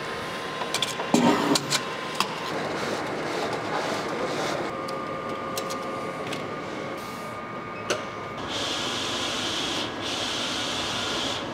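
Mutoh wide-format roll printer printing a sticker sheet: a few clicks and knocks near the start, then steady mechanical running of the print carriage and feed. In the last few seconds there is a steady hiss with two brief breaks.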